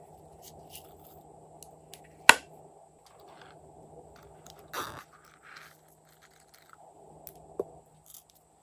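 Small toy containers and sequins being handled: a sharp click about two seconds in, a short rustling scrape near the middle, and a second, smaller click near the end, with light ticks between.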